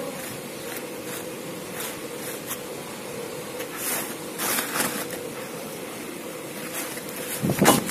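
A steel hydraulic piston handled and turned over by hand on cardboard: light scrapes and knocks, with a louder rubbing scrape near the end, over a steady machine hum.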